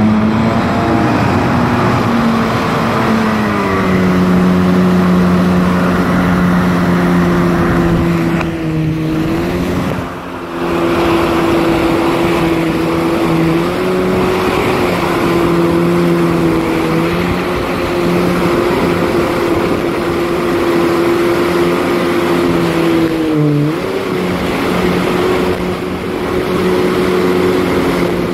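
Jet ski engine pulling a water skier up at full throttle, its pitch climbing in the first second and then holding steady at high revs. The throttle eases briefly about nine seconds in and again about twenty-three seconds in, with water rushing past the hull.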